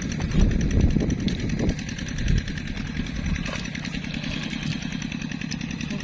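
A small engine running steadily, a low hum with a fast, even ticking, with a heavier, rougher low rumble over the first two seconds or so.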